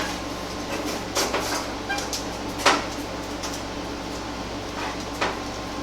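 A truck's sheet-metal front fender being handled and fitted into place: a few scattered knocks and clunks, about four, over a steady low hum.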